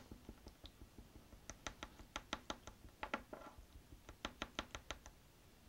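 Faint quick clicks of a small tool stirring in a little container of aluminium model paint that has clumped, in two short runs of about five clicks a second with a few clicks between them.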